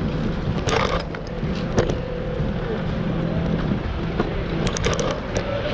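City street traffic noise with a steady low hum as an electric trolleybus runs close by, broken by a few sharp clicks and rattles, one about a second in and a quick cluster near the end.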